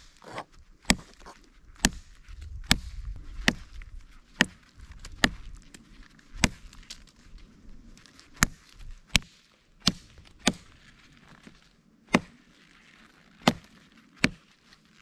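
Hultafors OK4 Scandi-ground bushcraft knife cutting through small twigs with quick single strokes. Each cut is a sharp crack, about sixteen of them at roughly one a second, unevenly spaced.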